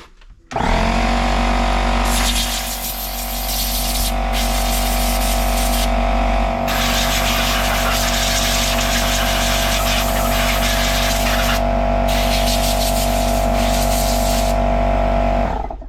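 Electric air compressor starting up and running with a steady hum, while an air blow gun hisses in long blasts with brief pauses, blowing dirt out of a chainsaw. The compressor stops just before the end.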